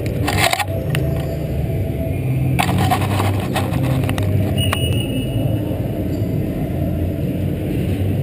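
Steady low rumble of a large indoor soccer arena, with a few short scuffs and knocks close by and a brief high tone about halfway through.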